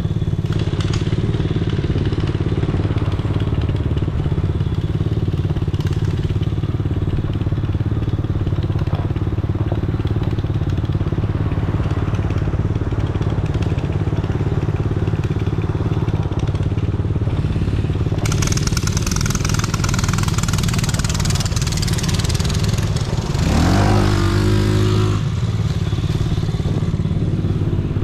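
ATV engine running steadily. About two-thirds of the way through a rushing hiss joins it. A little later the revs rise sharply, hold for a couple of seconds, then drop back.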